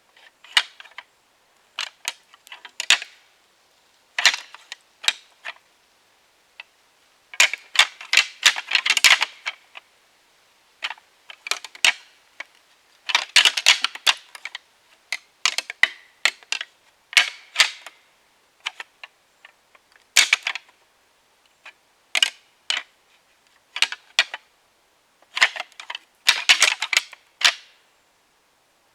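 Deer antler rattling: hard tines clacking and grinding together in irregular bouts of a second or two with short pauses between, imitating two bucks sparring to draw in deer.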